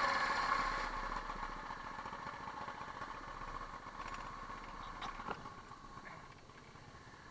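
Go-kart's small engine winding down from running to a faint low idle, fading steadily, with a light click about five seconds in.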